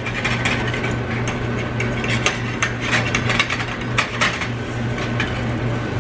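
A slotted metal spatula scraping and tapping against a frying pan in many short, irregular clicks while turning pancakes, over a steady low hum.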